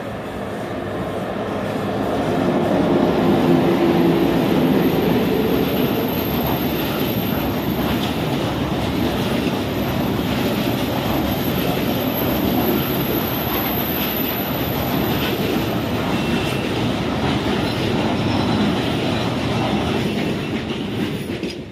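Freight train passing close by: the locomotive comes up and goes past over the first few seconds, then a long string of covered hopper wagons rolls by with a steady rumble and clatter of wheels on rail, with a thin high squeal over the middle. The sound fades away near the end.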